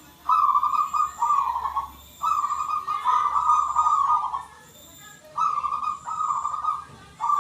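Zebra dove (perkutut) cooing: a run of repeated coos at one steady pitch, breaking off briefly a little after four seconds in before the coos resume.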